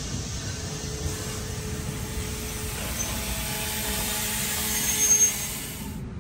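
NJ Transit bilevel coaches rolling slowly along the platform and braking to a stop. A hiss of wheels and brakes builds, with faint steady squeal tones, and a short high brake squeal comes about five seconds in, the loudest moment. The noise then drops as the train halts.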